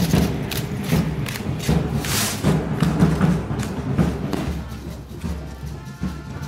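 Festive band music played live: a big drum beats about twice a second, with a crash about two seconds in, and brass comes in near the end.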